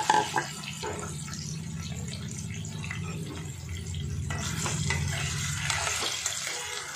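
Taro root slices frying in hot oil in a steel kadhai, a steady sizzle, with a spatula knocking and scraping against the pan as they are stirred; a few sharp knocks come right at the start. A steady low hum runs underneath.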